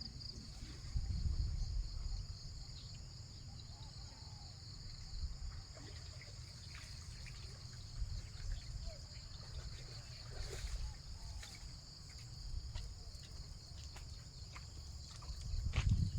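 Steady high-pitched chorus of insects, such as crickets, under a low rumble, with scattered light clicks and knocks.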